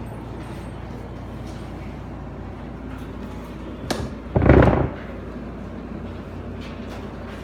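Steady room hum, broken about four seconds in by a sharp click and then a short, heavy thump.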